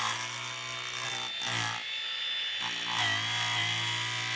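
Angle grinder running and grinding away the fiberglass deck laminate around a hole, to prepare it for a fiberglass patch. It makes a steady motor whine that drops away briefly about two seconds in and wavers in pitch as it bites.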